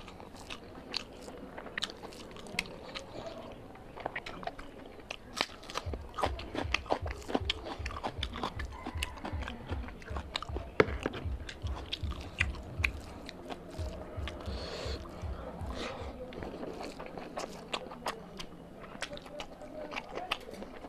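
Close-miked chewing and biting of a person eating mutton liver curry and rice by hand, full of wet mouth clicks and smacks with some crunching. A steady low chewing rhythm runs from about six seconds in to about thirteen, and one sharp loud click comes near the middle.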